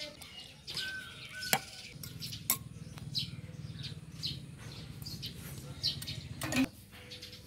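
A metal spoon stirring sauce in a ceramic bowl, clinking sharply against the bowl twice in the first few seconds. Small birds chirp over and over in the background, and a low steady hum runs through the middle.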